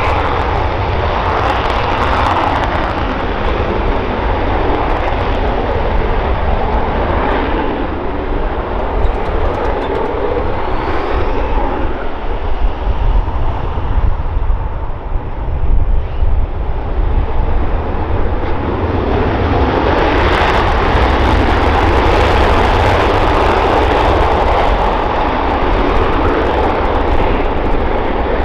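Jet noise from an F-15E Strike Eagle's twin Pratt & Whitney F100 turbofans running on the runway. About two-thirds of the way in the sound grows louder and harsher as the jet goes to afterburner and starts its takeoff roll.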